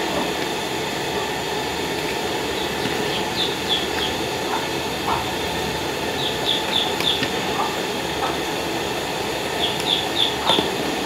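Large aluminium pot of rice and water at a rolling boil, a steady bubbling hiss, with a steel ladle stirring and now and then knocking against the pot. Short high chirps come in small groups over it.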